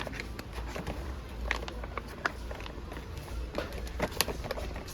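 Supermarket background noise: a low steady rumble with scattered sharp clicks and clatters, the loudest about four seconds in.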